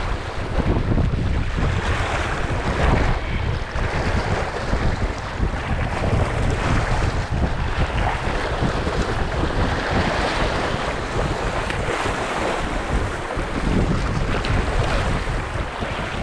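Rough sea surging and washing over rocks at the water's edge, rising and falling with each wave, with wind buffeting the microphone.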